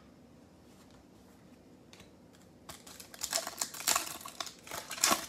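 Foil trading-card pack wrapper crinkling and tearing open by hand, a quick run of sharp crackles starting about two and a half seconds in after a quiet start.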